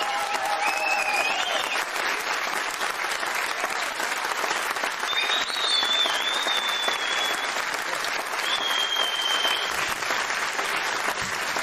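Studio audience giving a standing ovation: steady, dense applause, with a few long, high whistles cutting through in the middle.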